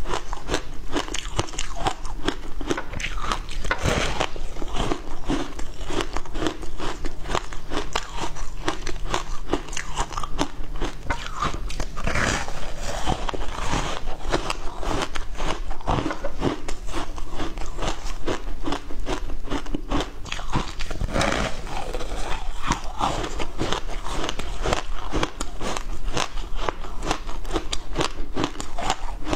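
A person biting and chewing a slab of passion fruit ice: dense, continuous crunching and crackling, with a few louder bites now and then.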